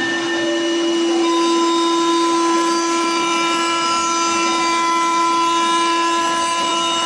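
Spindle of a CNC wood machining center cutting solid wood: a steady pitched whine that holds its pitch, over the hiss of the cut.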